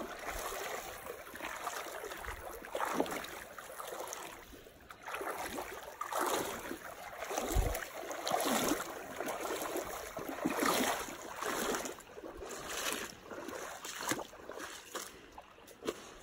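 Feet wading through a stream: water sloshing and splashing in irregular surges with the steps, over the steady rush of flowing water.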